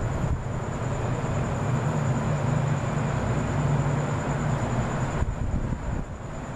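A steady low rumble with a faint high-pitched whine over it, dropping off about five seconds in.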